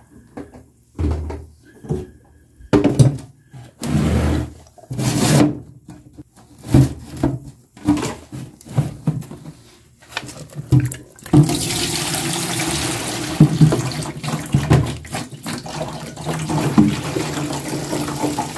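Knocks and handling noise from a plastic car battery case being moved, then, about eleven seconds in, a steady rush of rinse water pouring out of the battery's cells into a plastic tub as the battery is tipped over. It is the dirty rinse of a baking-soda and distilled-water cleaning, being drained off.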